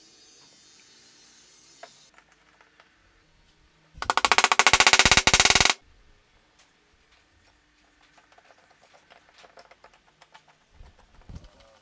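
A loud, rapid rattle of many quick clicks lasting about two seconds, followed by faint light clicks and knocks of parts being handled on a workbench.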